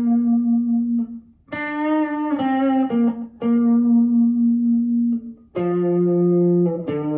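Electric guitar playing a slow single-note melody, about six or seven notes, most held a second or more, with two short pauses; the last notes step down lower.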